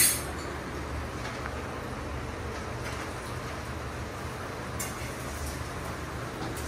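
Steady low rumble with a faint hiss of household background noise, with a sharp click at the very start and a faint tick about five seconds in.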